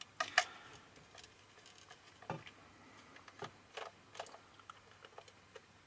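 Small precision screwdriver turning a self-tapping screw out of a cheap plastic multimeter case: faint, irregular clicks and ticks.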